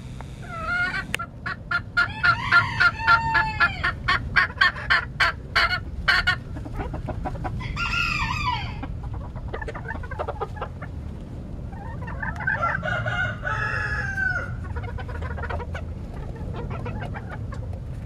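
Flock of bantam chickens, Mille Fleur d'Uccle hens and roosters, clucking: a quick run of sharp clucks about five a second in the first several seconds, a short call near eight seconds, then a longer drawn-out call like a rooster's crow about twelve seconds in, over a low steady rumble.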